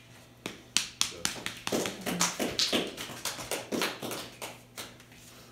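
Brief, scattered applause from a small audience: a few pairs of hands clapping in sharp, uneven claps, about four a second, dying away near the end.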